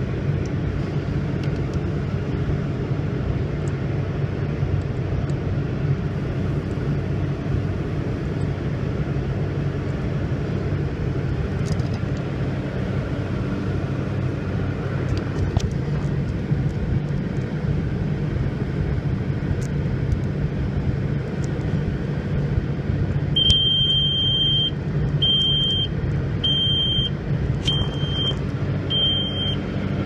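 1997 Peterbilt 379's diesel engine idling steadily. A little past two-thirds of the way in, the dash's low air pressure warning buzzer starts up, sounding a high beep about once a second: it works again now that its missing fuse has been fitted, and it is warning of low air pressure.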